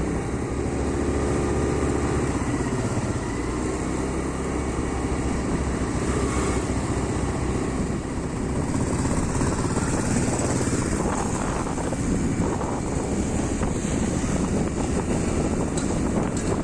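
1959 Royal Enfield Bullet 350's single-cylinder four-stroke engine running after restoration: a steady, even beat at first, turning rougher and noisier about halfway through.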